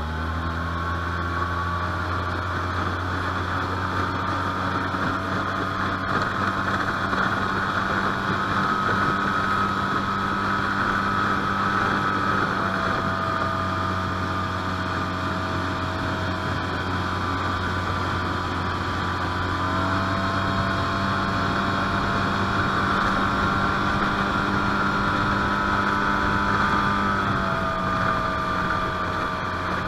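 A 20 HP Mercury four-stroke outboard runs at steady throttle, driving a 14-foot jon boat along, with a rushing hiss beneath the engine note. The pitch shifts slightly about two-thirds of the way through and again near the end.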